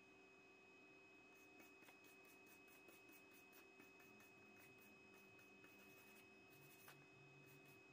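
Faint, quick back-and-forth scrubbing of a hand wire brush on the steel end of a cargo unloader's drive shaft, about three strokes a second, starting about a second and a half in.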